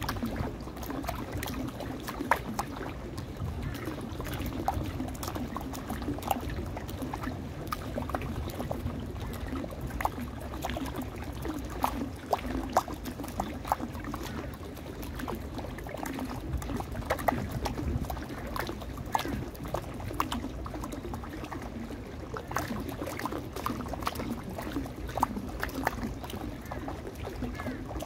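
Water running down a stepped fountain (a 'water stairs' cascade) and rippling across its shallow pool: a steady pouring rush dotted with many small splashes and drips.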